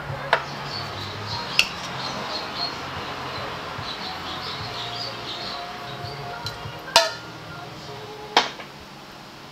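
Sharp metal clinks as tools and a steel oil drain pan are handled under a scooter's engine while draining the oil: a few separate knocks, the loudest about seven seconds in.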